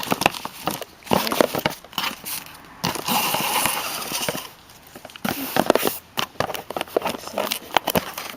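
Packaging being handled and opened: crinkling and rustling with many small clicks and knocks, and a longer rustle about three seconds in.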